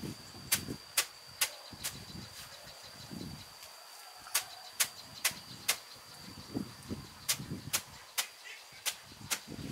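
A series of sharp knocks or chops, about two a second, in several runs with a short pause between them, over a faint steady high-pitched tone.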